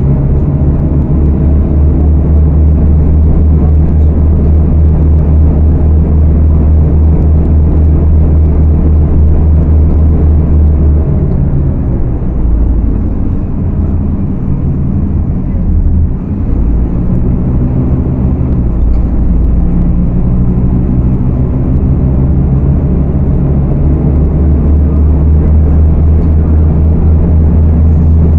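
Scania K250UB bus's five-cylinder diesel engine running hard at high revs. It eases off about eleven seconds in and pulls strongly again a few seconds later.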